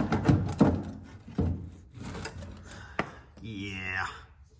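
A metal tool knocking and jabbing at the rusted rear frame rail of a 1980 Toyota pickup, several dull knocks over the first three seconds. The knocks are a test for rust rot, and the frame is weak enough for the tool to punch through.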